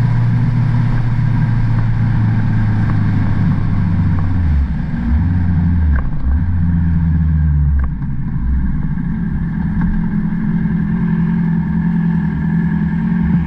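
Honda CB650R's inline-four engine at cruise, with wind noise, then rolling off and downshifting as the bike slows to a stop. The engine note steps between pitches with a couple of sharp clicks, then settles to a steady idle.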